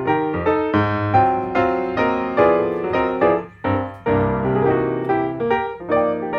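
Background piano music: a melody of single struck notes over held chords, each note fading after it is struck, with a brief dip about three and a half seconds in.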